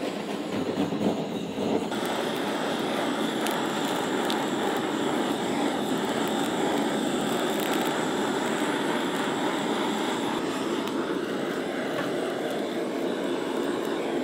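Handheld gas torch on a canister burning with a steady hiss, a little louder from about two seconds in, as its flame singes the leftover feathers and hairs off raw whole chickens.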